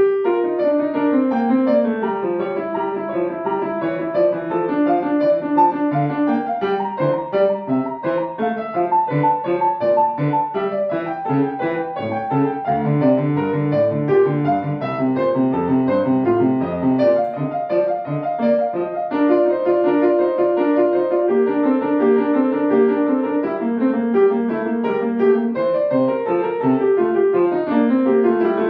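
Solo grand piano playing a classical piece, a continuous stream of short running notes at a steady, lively pace.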